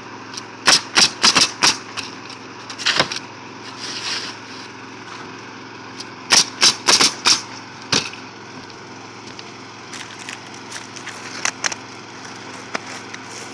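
Pneumatic roofing nailer firing nails into asphalt shingles: two quick runs of about five shots, roughly four a second, about a second in and again about six seconds in, with scattered single shots between. A steady low machine hum runs underneath.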